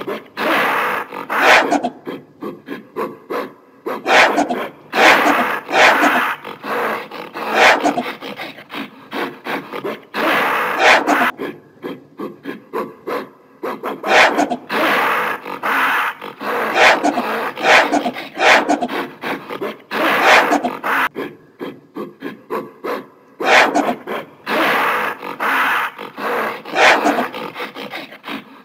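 Gorilla vocalising in short, rough bursts, several to a second, in runs broken by brief pauses.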